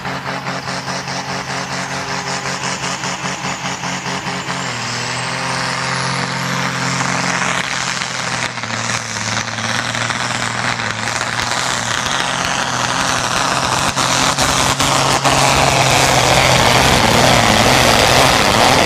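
Turbocharged diesel pulling tractor running hard down the track: the engine pulses at first, then revs higher about four seconds in with a high whistle rising in pitch, and grows steadily louder toward the end.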